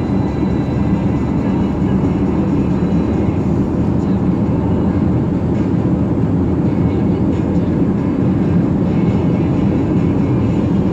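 Steady road and engine noise heard inside a car's cabin at freeway speed: a loud, even low rumble of tyres and engine.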